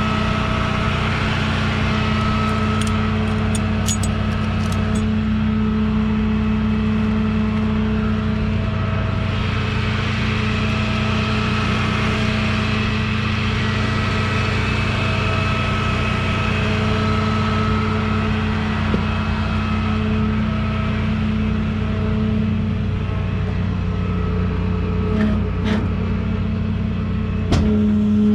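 A motor vehicle's engine running steadily with a constant hum, a few light clicks a few seconds in, and a knock near the end.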